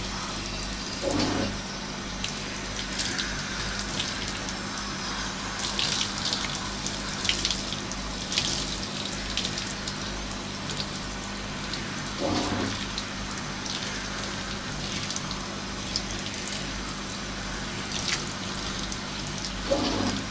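Handheld shower running steadily, its spray spattering on a dog's wet coat and the bathtub.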